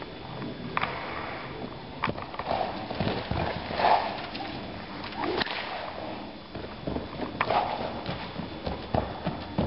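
A loose horse's hooves thudding irregularly in arena sand as it gets up and moves off at a trot and canter, with several sharp knocks and the loudest hit about four seconds in.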